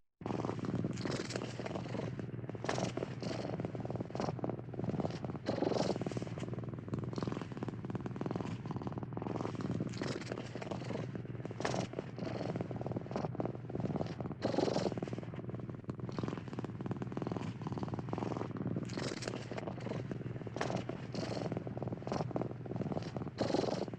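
Domestic cat purring steadily, a continuous low rumble that swells every second or two.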